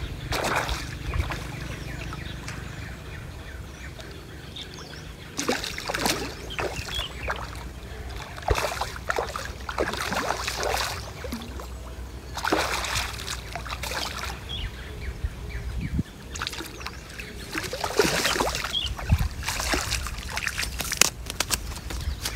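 Water splashing and sloshing in irregular bursts, over a steady low rumble.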